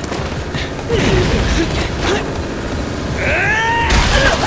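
Anime fight sound effects: a series of hard hits and impacts, with a bending, wailing whine just before a heavy hit near the end.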